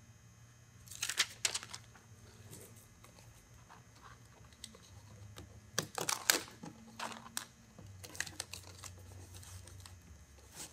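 Crinkling and crackling of foil-faced flashing tape as it is handled and pressed down around a chimney corner, in several short bursts, loudest about a second in and again around six seconds in.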